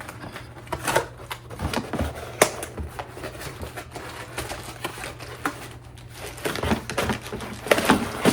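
Irregular clicks, taps and rustles of a cardboard box and its packed power cable and charger being handled and pulled out, over a faint steady low hum.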